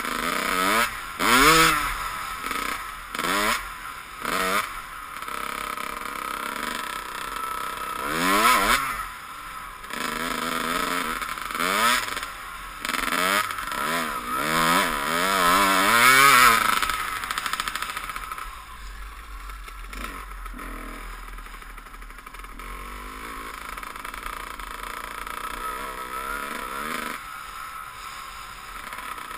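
Dirt bike engine being ridden hard: over and over it revs up in rising sweeps and drops back as the rider works the throttle and gears. For roughly the last third it eases to a quieter, steadier running note.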